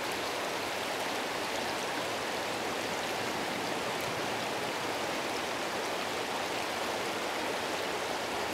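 River water flowing steadily over a stream bed, an even rushing noise.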